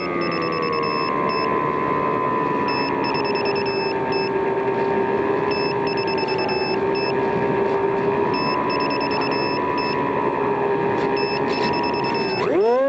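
Radio-controlled model plane's motor running at a steady part throttle, its pitch wavering slightly, then rising sharply near the end as the throttle is opened. A faint high beeping repeats in short bursts.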